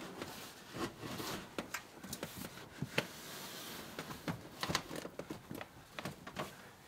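A TruckFridge TF65 compressor fridge being pushed into a wooden camper-van cabinet and worked into place: irregular light knocks, clicks and scuffs of the fridge case against the cabinet, the sharpest about three seconds in.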